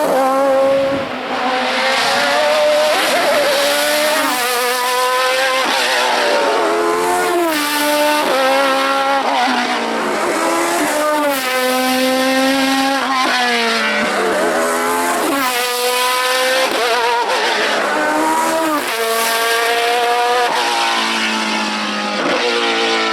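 Hillclimb race car engine at high revs, climbing in pitch through the gears with a sharp drop at each shift. In a few longer stretches the pitch falls as it comes off the throttle before accelerating again.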